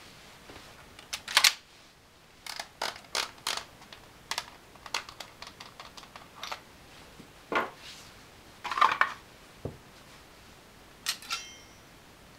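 Sharp metallic clicks and clatter as a Remington M1100 shotgun is field-stripped: parts being unlatched, slid apart and set down. The loudest clicks come about a second and a half in and a cluster about nine seconds in, and a short metallic ring sounds near the end.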